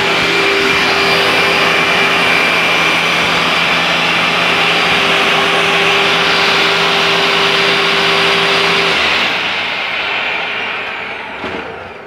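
Dirt Devil upright vacuum cleaner running steadily with a constant whine, then switched off about nine seconds in, its motor winding down with a falling pitch over the last few seconds. A short click near the end.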